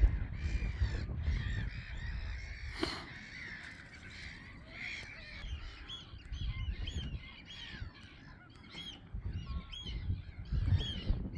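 A crowd of gulls and other waterbirds calling over each other: many short, harsh, overlapping calls that keep coming, with a low rumble underneath.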